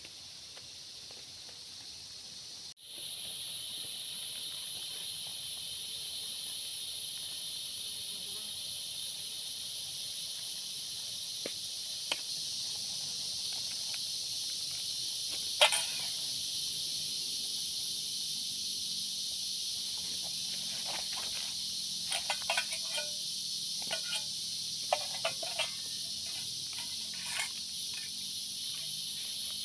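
Forest insect chorus: a steady high-pitched buzzing in several layered bands, getting louder about three seconds in. Scattered sharp clicks and snaps come through it, one loud about halfway and a cluster near the end.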